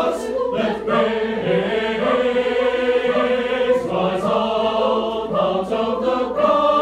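A mixed choir of teenage voices singing in parts, holding chords that change every second or so.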